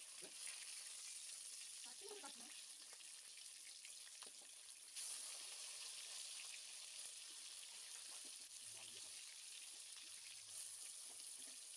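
Fish steaks sizzling as they shallow-fry in hot oil in a wok: a steady, crackling hiss that grows a little louder about five seconds in. A few sharp clicks come from a steel spatula touching the pan.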